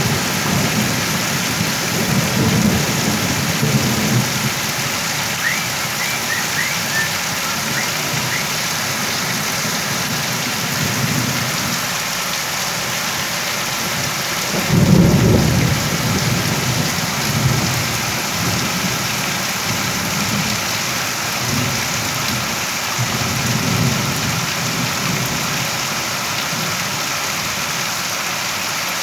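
Steady, heavy rain with low rumbles of thunder rolling in and out. The loudest rumble comes about halfway through.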